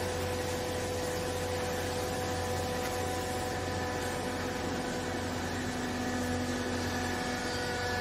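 Vertical hydraulic baler's electric motor and hydraulic pump running steadily while the ram presses down into the baling chamber: a steady hum with several held tones, a lower tone joining about halfway through.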